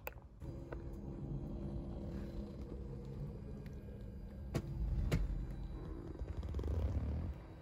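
Power recliner seat's electric motor running steadily as it raises the footrest, with a few sharp clicks partway through; the motor stops just before the end.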